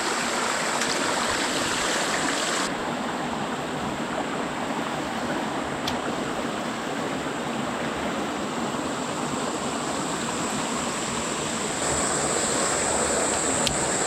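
Freshwater rainforest creek running and splashing over rocks and small falls: a steady rush of water that shifts in tone about three seconds in and again near the end.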